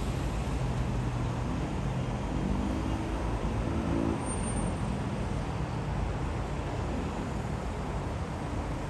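Steady city road traffic, with one vehicle's engine climbing in pitch about two to four seconds in.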